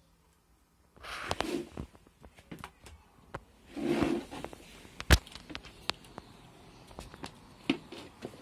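Handling noise and footsteps as a hand-held device is carried: scuffs and rustles with scattered clicks, and one sharp knock about five seconds in.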